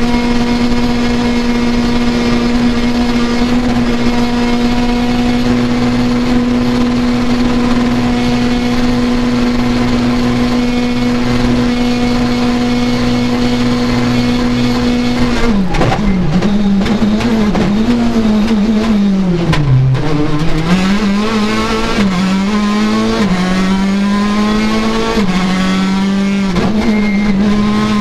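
Citroën DS 3 R5 rally car's turbocharged 1.6-litre four-cylinder engine, heard from inside the cockpit. It is held at one steady high pitch for about fifteen seconds, then the revs drop sharply and rise and fall repeatedly through braking, gearchanges and bends.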